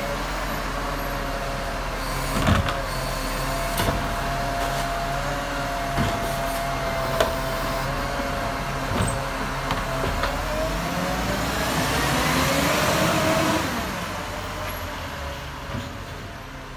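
Iveco Acco side-loader garbage truck with its Cursor 9 engine running while the hydraulic lifting arm works a wheelie bin, with several sharp knocks of the bin against the arm and hopper. Near the end the pitch rises and grows louder as the truck pulls away, then fades.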